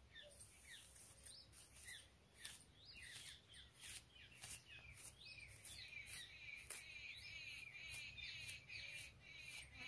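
Faint chirping of small birds, with many quick repeated calls, and short scratchy rustles of long hair being gathered and pulled by hand.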